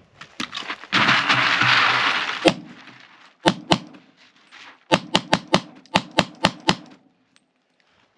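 A hiss of pepper spray lasting about a second and a half, followed by a string of sharp shots: two, then a quick run of about nine, fired in a defensive shooting.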